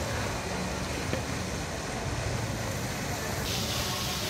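Steady outdoor background noise: a low rumble and hiss with faint voices. A brighter hiss comes in about three and a half seconds in.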